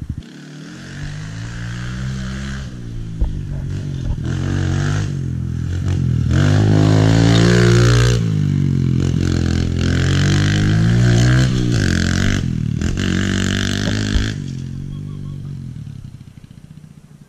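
Small Kawasaki mini dirt bike engine revving up and down as it rides past close by. It is loudest midway through, then fades away near the end.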